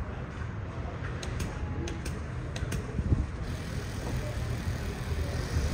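Steady low engine rumble, with a few faint high clicks in the first half.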